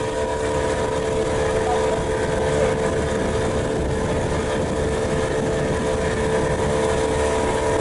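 Motorboat engine running steadily: an even hum with a held whining tone and a rough low rumble.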